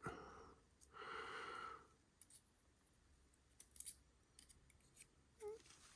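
Near silence broken by a few faint, small metallic clicks and ticks from a Mul-T-Lock Junior lock cylinder and the tools handling its pins, scattered through the second half.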